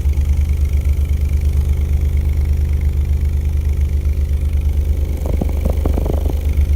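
Subwoofer with a neodymium motor playing a low sine-wave test tone: a loud, steady low hum with a fluttering pulse. Voices join about five seconds in.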